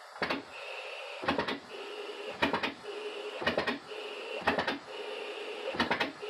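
Homebuilt compressed-air piston engine running slowly on about 30 psi: a cluster of knocks and an exhaust puff about once a second. A steady whistle of air is heard between strokes, which the builder puts down to a leak at the intake gasket.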